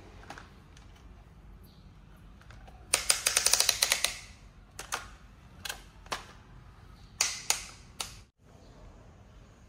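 Plastic toy construction trucks being handled, giving a rapid run of sharp plastic clicks for about a second, then a handful of single clicks and knocks.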